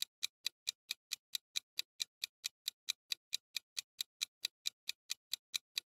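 Countdown-timer ticking sound effect, like a clock: sharp, evenly spaced ticks at a little over four a second.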